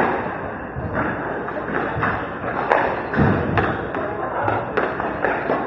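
Squash rally: a squash ball struck by rackets and smacking into the court walls and floor, a run of irregular sharp thuds and cracks that echo around the court.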